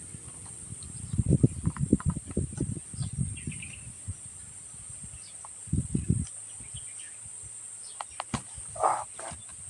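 Close-miked chewing of food in bursts of short, wet crunchy strokes, with a few sharp clicks near the end. A steady faint high hiss runs underneath.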